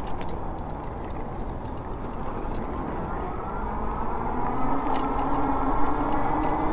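Electric e-bike motor whining faintly under throttle, the whine rising slowly in pitch from about four seconds in as the bike speeds up. Under it runs a steady rush of wind and tyre noise on asphalt, with scattered light ticks.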